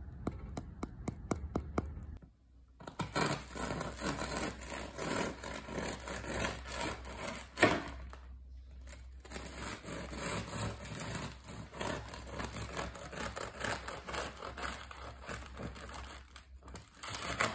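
Fingertips tapping the hard crust of a freshly baked crusty loaf, about five crisp taps a second. Then a serrated bread knife saws back and forth through the crusty round loaf in a long run of rasping strokes, with one sharp crack about seven and a half seconds in.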